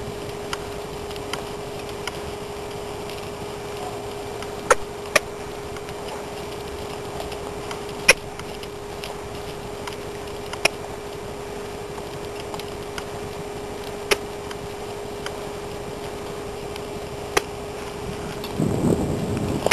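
A steady mechanical hum on one even tone, with a few sharp clicks scattered irregularly through it and a brief louder sound near the end.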